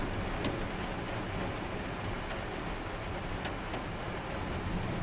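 Fast-moving floodwater rushing and churning in a steady, unbroken noise, with a couple of faint ticks.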